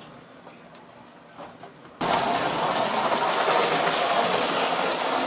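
Electric toy train running around its track at high speed: faint at first, then from about two seconds in a loud, steady whir and rattle of its motor, gears and wheels.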